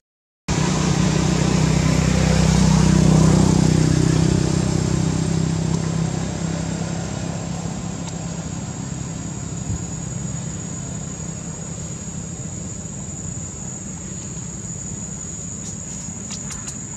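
A motor vehicle's engine humming past, loudest about three seconds in and then fading, over a steady high drone of insects.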